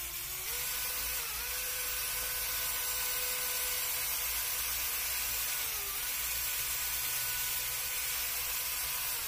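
Small electric motor of a homemade PVC-pipe floor scrubber running with a steady whine as it spins the brush on tiles, the pitch sagging briefly about three times as if under load, over a steady hiss.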